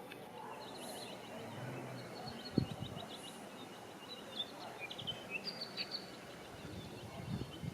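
Small birds chirping in quick repeated notes over a steady outdoor hiss, with a single knock about two and a half seconds in.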